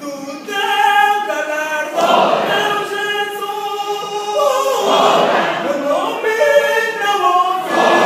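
Church choir singing a cappella, holding long chords, broken about every three seconds by loud noisy bursts.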